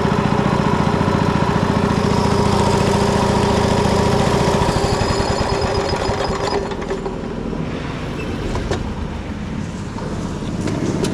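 Small go-kart engine running hard with a rapid, even pulsing note, easing off and running lower and rougher about six seconds in.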